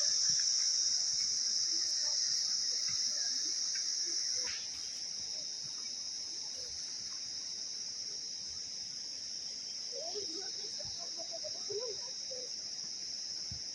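Forest insects chirring in one steady, high-pitched drone. A lower hiss underneath drops away about four and a half seconds in.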